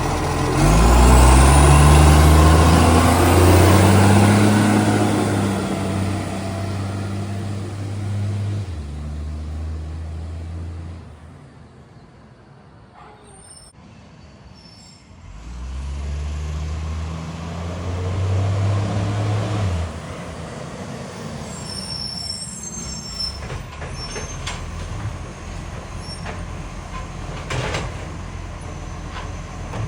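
Garbage truck's diesel engine pulling hard twice, its pitch rising through each pull, with the loud note of an exhaust leak. Between the pulls it drops back to a quieter idle, and near the end it runs low under a series of clicks and knocks.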